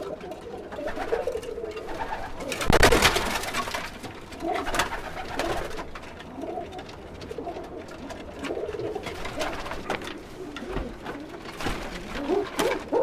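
Domestic pigeons cooing in a small coop, many overlapping low warbling calls, with a brief loud rustling burst about three seconds in and a few lighter knocks later.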